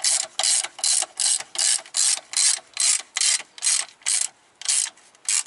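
Hand socket ratchet clicking in quick back-and-forth strokes, about two or three a second, as it runs a bolt down on a car's pendulum mount; the strokes space out slightly and stop near the end.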